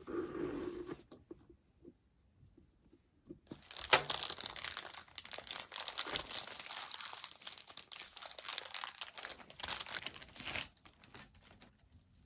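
Packaging being unwrapped by hand: crinkling, rustling and tearing of wrapping, with one sharp snap about four seconds in. The crinkling goes on for about seven seconds and stops shortly before the end.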